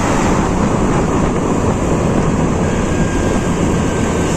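Steady wind and road noise from riding a motor scooter, the wind rushing over the microphone.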